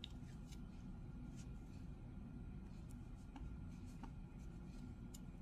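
Faint rustling of yarn being worked with a crochet hook, with a few light ticks, over low room hum.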